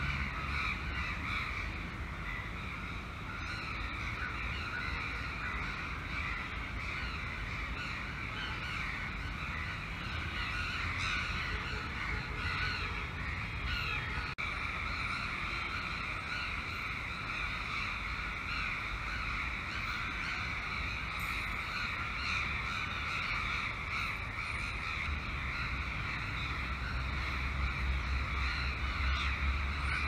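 A large flock of crows cawing and calling together in the treetops, a continuous noisy din of many overlapping voices. Low wind rumble on the microphone grows near the end.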